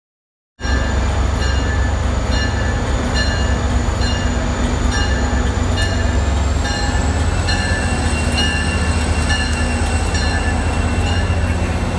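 NJ Transit locomotive 4100, an EMD GP40PH-2 diesel, running with a heavy steady rumble while its bell rings evenly about twice a second, as it pulls a commuter train out; a faint high whine runs over the top. The sound cuts in about half a second in.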